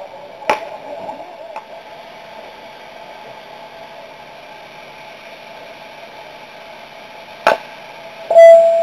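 Metal baseball bat striking a pitched ball near the end: a sudden loud crack followed by a clear ringing ping that carries on for over a second. Before it, two sharp knocks stand out against a steady background hum.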